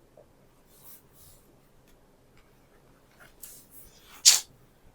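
Faint scratching of a pen writing in a notebook, then near the end a man's single sharp sneeze, short and loud.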